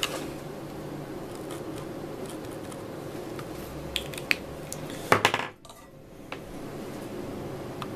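Small metal tools clicking and clinking as they are handled and set down on a workbench: a few light clicks, then a louder cluster of clinks a little after five seconds, over a steady background hum.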